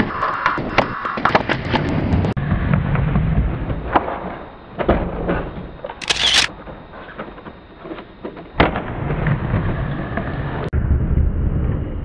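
Skateboard on a wooden ramp: urethane wheels rumbling over the plywood, with repeated sharp clacks and knocks of the board against the ramp and coping.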